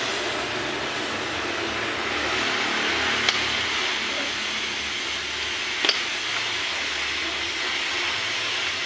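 Steady background hiss and rumble, with two sharp metallic clicks about three and six seconds in as a keyed drill chuck is pushed onto a magnetic drill's spindle.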